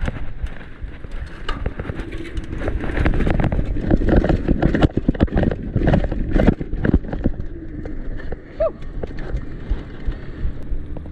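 Downhill mountain bike ridden fast over rough urban ground: a dense run of knocks and clatters from the bike over a steady low rumble, busiest in the middle.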